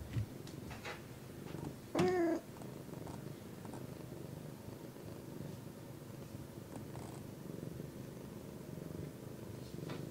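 A domestic cat purring steadily, with one short meow about two seconds in.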